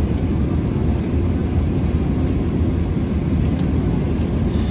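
Airliner cabin noise heard from a passenger seat: a steady low rumble of engines and rushing air.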